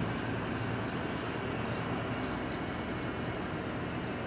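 Steady outdoor background noise: a low, even hum of distant road traffic, with a faint high steady tone over it.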